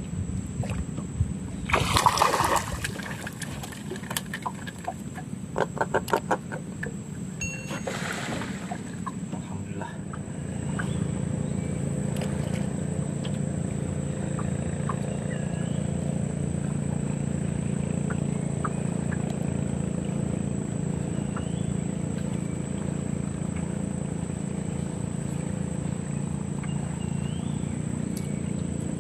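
A few knocks and splashes and a short rattle of quick ticks, then from about ten seconds in a small boat's engine starts running at a steady low hum.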